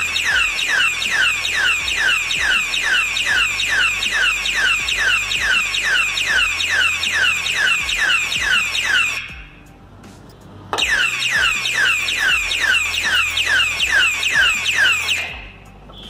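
Electronic siren of a motion-sensor alarm padlock, triggered by tampering: a super loud, rapid run of falling wails, about two and a half a second. It stops about nine seconds in, starts again a second and a half later, and cuts off near the end when the lock is unlocked.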